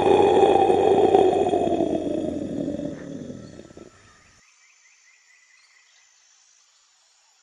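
A big cat's roar played as the leopard's call: one long, rough roar that is loudest at the start and fades away about four seconds in.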